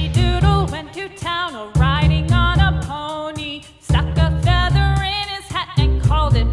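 Background music: a singing voice over instruments with a steady beat.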